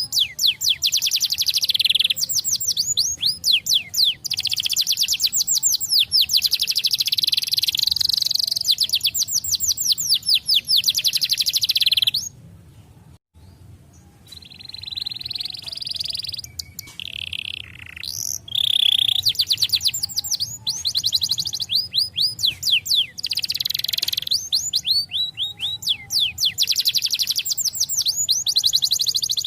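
Colour canary singing a long song of fast rolling trills and chirps. About twelve seconds in it stops briefly, comes back with a few softer phrases, and then returns to full, loud song.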